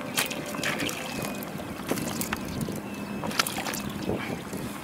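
A hooked fish splashing at the surface as it is reeled in on a spinning rod and swung out of the water, with scattered sharp splashes over a steady rushing background.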